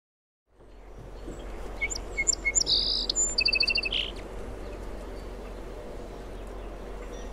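Small birds chirping: a run of quick high chirps and short trills over a steady outdoor background hiss, which fades in after a brief silence at the start. The chirps stop about four seconds in, leaving only the background.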